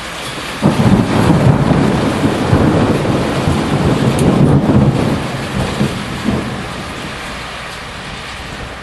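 Steady heavy rain, then about a second in a sudden loud thunderclap from nearby lightning, followed by deep rolling rumble that fades over several seconds.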